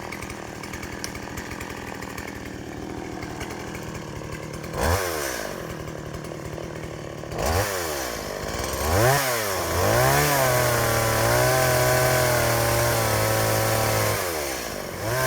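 Two-stroke chainsaw idling, then revved in several quick rising-and-falling bursts from about five seconds in. It is held at high speed for about four seconds while cutting a log from underneath, then drops back and revs once more near the end.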